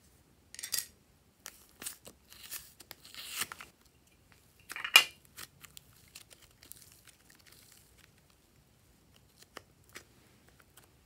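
Soft blue modelling clay being pulled and torn apart by hand, with a plastic slime pot handled: a run of crinkly tearing rustles and clicks, one sharp crackle about five seconds in, then only faint ticks.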